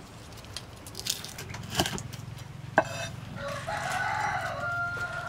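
A rooster crowing once, a long call starting about three and a half seconds in and ending on a held note. Before it come a few sharp knocks on a wooden chopping board, the loudest nearly three seconds in.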